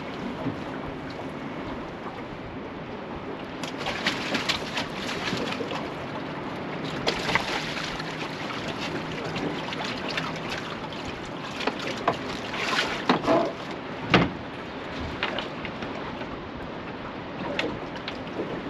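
Wind and water slapping against a small fishing boat, with scattered clicks and knocks of gear being handled aboard; a sharp knock about fourteen seconds in is the loudest.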